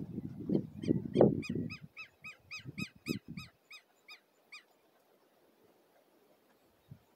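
Quick rubbing strokes of hands scrubbing a pickup truck's tyre for the first two seconds. Overlapping them, an animal gives a fast, even series of short, high, arched calls, about five a second, which stops a little over four seconds in.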